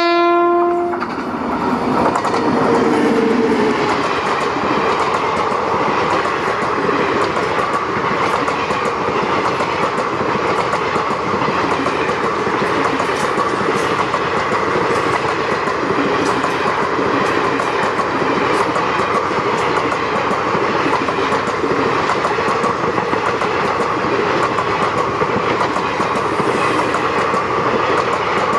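Horn of an Indian Railways WAP-7 electric locomotive cutting off about a second in, followed by the train's passenger coaches rolling past at moderate speed, wheels clicking over the rail joints in a steady clatter.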